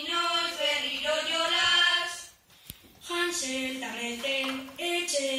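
Children singing a verse in Basque in the bertso style, holding notes that step up and down, with a short pause about halfway through.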